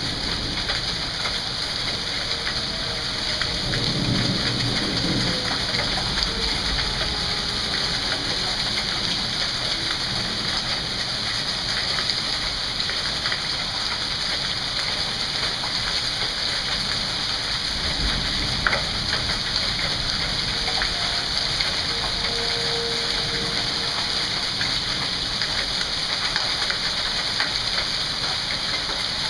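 Rain with small hail falling on a lawn and concrete walk: a steady hiss with scattered sharp ticks, and a low rumble about four seconds in.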